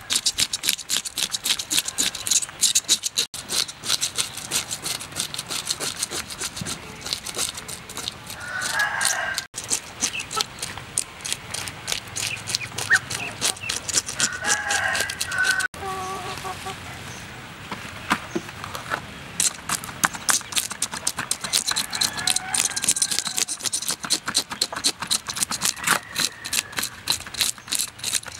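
Knife blade scraping scales off a large raw fish in rapid repeated strokes, each stroke a short rasping click, with a pause in the scraping partway through. Chickens cluck in the background.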